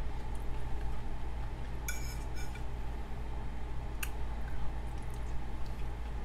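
Eating utensils clinking against a food container or plate a few times, twice clearly: a ringing clink about two seconds in and a sharp tap about four seconds in. A steady low hum runs underneath.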